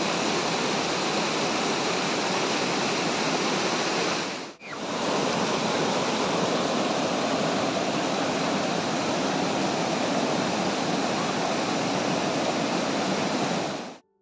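White water of a mountain river rushing over and between boulders in rapids, a steady loud rush. It dips out briefly once, about a third of the way in, and cuts off abruptly just before the end.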